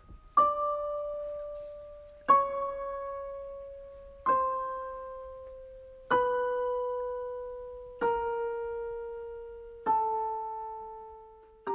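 Slow background music: a descending line of single piano notes, one struck about every two seconds and left to ring out and fade.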